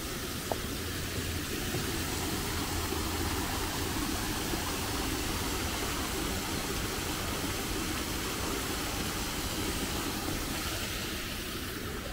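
Small garden waterfall and cascading stream splashing as a steady rush of water, swelling in the middle and easing off near the end.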